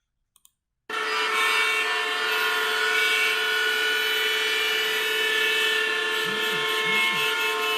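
Traffic jam: many vehicle horns blaring together in a steady din, starting abruptly about a second in.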